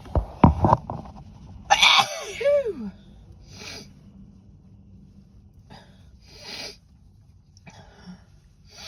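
A woman sneezing hard twice in quick succession, then once more about two seconds in, this sneeze trailing off in a falling voiced sound. Softer short breaths follow every second or two.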